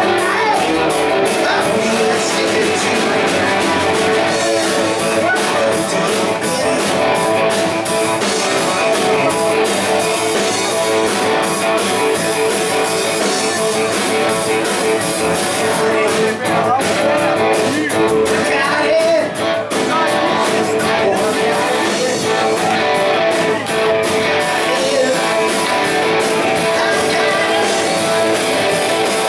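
Live rock band playing at full volume: electric guitar, bass and drums in a steady rock-and-roll groove.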